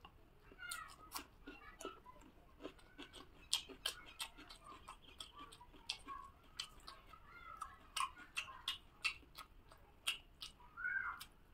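Wet clicks and smacks of chewing and of fingers working rice and chicken curry on a plate. A few short, wavering animal calls come several times in between.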